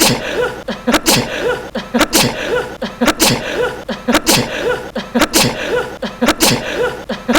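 A man's sneeze looped over and over, a sharp burst about once a second, seven times, each with a short voiced trail.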